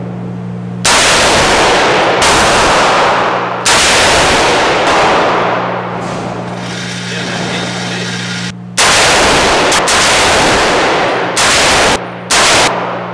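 A .300 Blackout AR pistol with a 10.5-inch barrel fired in single shots, about seven in all: three in the first four seconds, a pause, then about four more. Each shot is very loud with a ringing tail of about a second.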